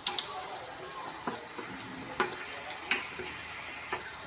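Chicken curry frying in a kadai with a steady high sizzle. A metal spoon or ladle clicks and scrapes against the pan several times as the masala is added and stirred in.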